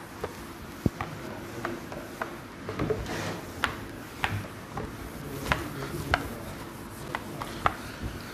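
A cloth duster rubbing across a whiteboard as it is wiped clean, with scattered sharp clicks and taps.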